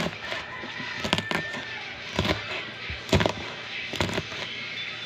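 Kitchen knife chopping green beans onto a wooden cutting board: sharp knocks of the blade against the board at about one stroke a second.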